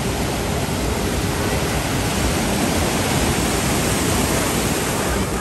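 Sea surf breaking and washing through the shallows: a steady, loud rush of water.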